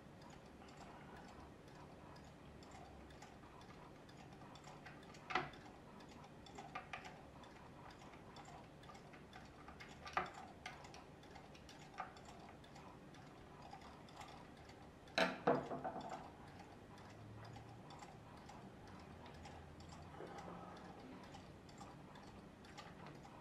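Small wood screws being undone from the wooden driving unit of a home-made magnet wheel with a screwdriver and fingers: faint scrapes and light ticking, with a few sharper clicks and knocks about five, ten and twelve seconds in, and a short cluster of the loudest ones at about fifteen seconds.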